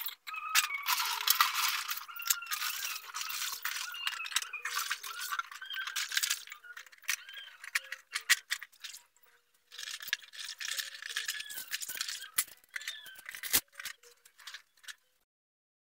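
Cups and dishes clattering and clinking against each other and a plastic washbasin as they are washed and stacked, with splashing water. There is one sharp, heavy knock near the end, and the sound then stops.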